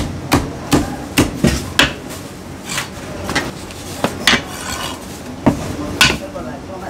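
Heavy steel cleaver chopping roast poultry on a thick round wooden chopping block: a quick run of sharp chops, about three a second, then a few spaced knocks with the blade scraping across the board.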